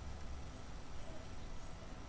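Low steady hiss of room tone with no distinct clicks; the 3x3 speedcube being turned in the hands is not clearly heard.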